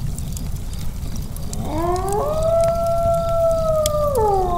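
Intro sound effect of a wolf howl: one long call that rises, holds a steady note for about two seconds, then drops off near the end. Under it runs a low rumble with scattered crackles.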